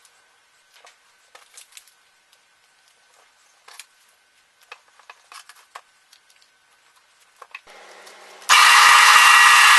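Soft paper rustling and light taps as paper patterns are handled and pressed onto a wood block. Near the end a drill press starts running loudly.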